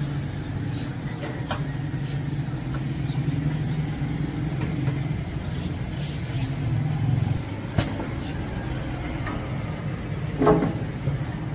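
Steady hum of street traffic with engines running, broken by a few short light clicks. A brief louder sound comes about ten and a half seconds in.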